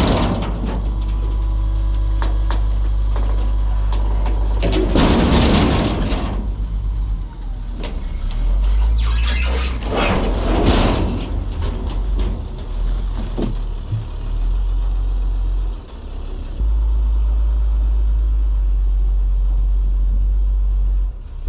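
Work truck's engine running under way with a steady low rumble, with louder rushing noise swelling up a few times.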